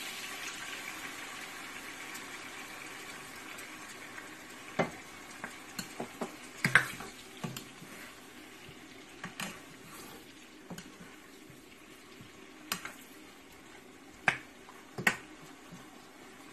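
Chicken pieces in a frying pan sizzling and bubbling after a splash of broth is poured in, the hiss slowly dying down. From about five seconds in, a serving spoon stirs the chicken, knocking and scraping against the pan in a string of sharp clicks.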